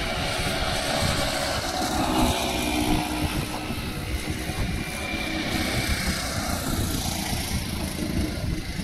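Road traffic: a motorcycle and a small pickup truck drive past close by, their engines growing louder in the first few seconds and then fading, over a steady low rumble.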